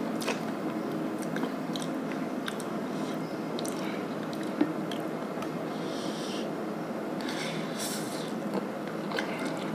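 A person eating instant noodles off a fork: chewing with small clicks, and short slurps of noodles about six and eight seconds in.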